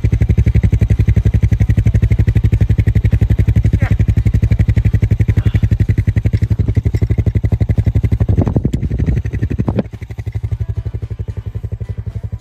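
A small engine idling with a steady, rapid pulse throughout. Near the end there are a few knocks and a rattle, and the engine sound then drops in level.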